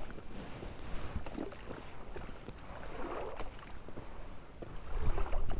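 Water sloshing and lapping around a small inflatable boat on the water, with a low rumble of wind on the microphone.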